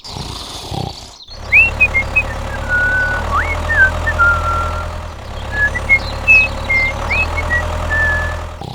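A motor running steadily with a low hum, with a string of short high whistling notes and upward slides over it from about a second and a half in.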